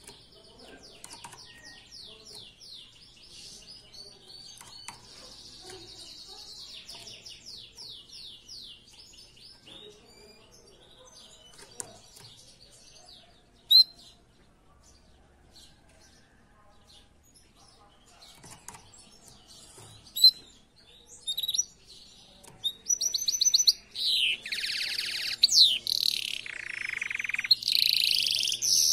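Canary singing: soft, rapid trills in the first part, then loud full song of rolling trills and sweeping notes in the last few seconds.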